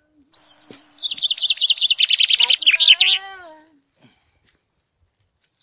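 A songbird singing one loud song of about three seconds: a fast run of repeated notes that falls in pitch and ends in a flourish.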